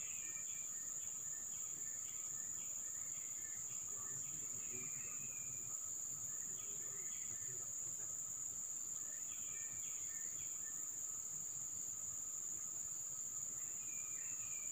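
Steady high-pitched drone of a chorus of insects, with short chirping calls coming and going over it.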